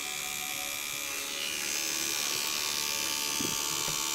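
Tattoo machine running with a steady buzz as the needle works on skin, getting a little louder about two seconds in.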